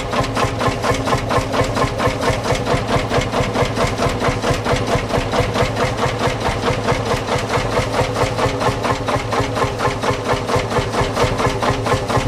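Old farm tractor engine running at a slow, steady idle, its firing beats evenly spaced.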